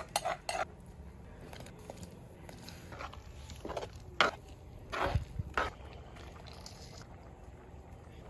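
Scattered short knocks and clatters: a quick cluster at the start, then several single knocks in the middle. A low steady hum runs underneath.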